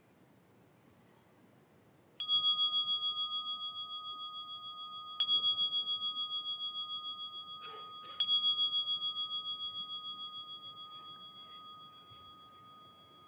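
A meditation bell is struck three times, about three seconds apart. Each strike rings on in several tones with a wavering pulse and fades slowly, overlapping the next.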